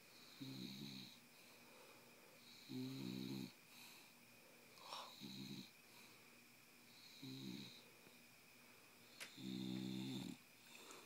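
Bulldog snoring while wide awake: a low snore on each breath, five of them, about every two seconds, the longest near the end.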